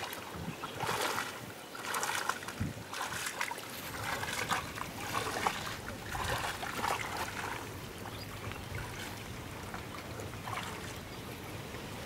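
Shallow water sloshing and splashing in irregular bursts as people wade through weedy, lily-covered water, busier in the first half and calmer near the end.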